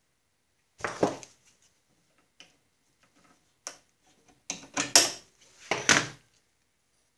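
Knocks and clacks of the Snapper walk-behind mower's clutch disc assembly and spring being handled and fitted by hand: one knock about a second in, a few light ticks, then a quick run of clacks about five to six seconds in.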